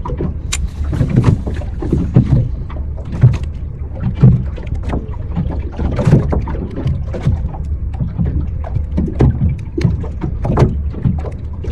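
A small boat drifting at sea: irregular knocks and splashes of water against the hull over a steady low rumble.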